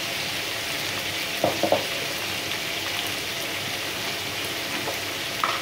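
Freshly added sliced onions sizzling steadily in hot fat in a pan as a wooden spoon stirs them, with two short knocks about a second and a half in.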